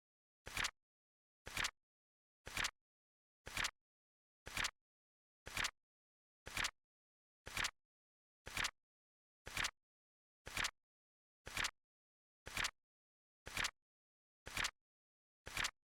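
Flip clock sound effect: a short double-click of a flap flipping over, repeated evenly once every second.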